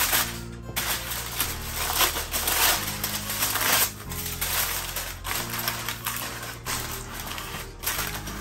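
Aluminium foil crinkling and crackling as it is pressed and crimped by hand around the edges of a baking dish, in short irregular bursts.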